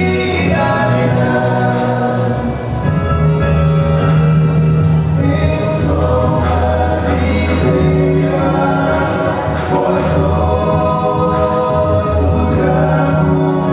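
Male vocal quartet singing a gospel song in harmony into microphones, with a deep bass part under the higher voices.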